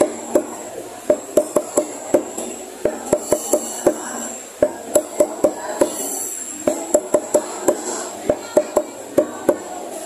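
A heavy cleaver chopping chicken feet on a wooden chopping block, cutting off the claws. Sharp knocks come in quick runs of about four or five a second, with short pauses between runs.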